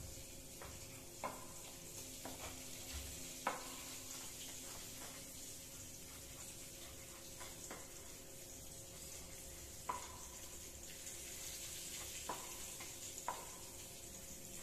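Kitchen knife tapping on a small wooden cutting board as vegetables are sliced: a sharp tap every second or two, the loudest about three and a half seconds in. Underneath, a steady sizzle of oil frying in a wok on the gas stove.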